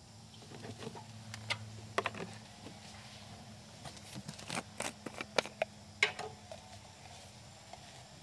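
Motor oil glugging out of a plastic quart bottle into a small engine's oil fill port: irregular gurgles and sharp pops, thickest in the middle, over a low steady hum.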